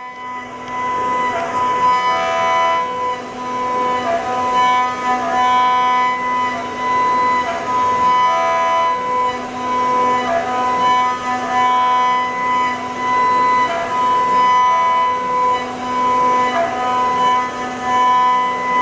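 CNC router spindle running with a steady high whine on a finishing pass, smoothing the stepped Renshape mold surfaces. Shorter tones shift in pitch every second or so as the machine moves from one cut to the next.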